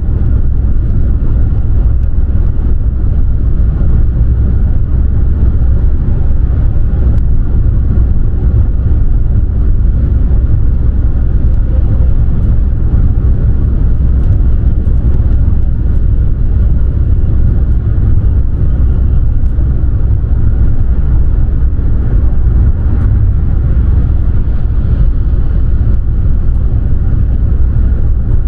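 Car driving at road speed: a steady, loud, low rumble of road and engine noise.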